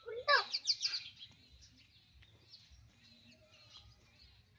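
A brief high-pitched cry in the first second, then faint birds chirping.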